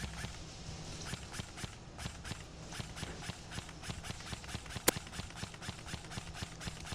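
Quick, evenly paced footsteps on the ground, about four or five a second, with gear jostling, as the player moves across the airsoft field. About five seconds in there is a single sharp crack, much louder than the steps.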